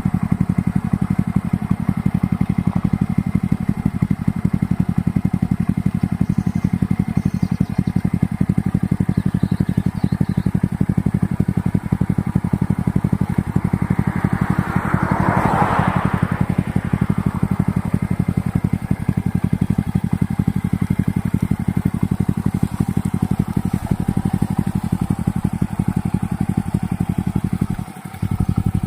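Exhaust of a small Honda four-stroke minibike's single-cylinder engine, idling with a steady, even beat. A brief hissing swell comes about halfway through, and the beat stumbles briefly near the end.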